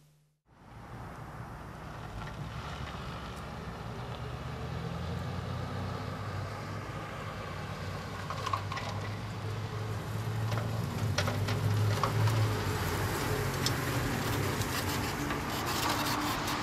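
E-Z-GO golf cart running as it drives up, a steady low hum growing louder as it approaches, with a few light rattles and clicks in its second half.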